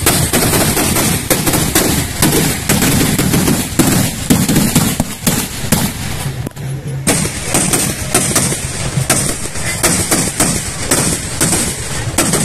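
Firecrackers going off on the ground in a rapid, irregular run of sharp bangs and crackles, thinning briefly about six and a half seconds in before picking up again.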